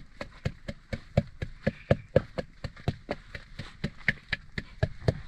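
Ginger and garlic being pounded to a paste, a steady run of sharp strikes at about four a second.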